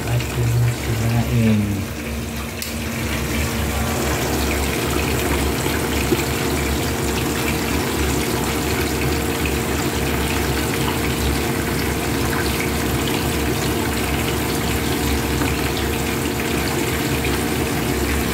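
Several whole fish frying in a pan of hot oil: a steady sizzle as the oil bubbles hard around them.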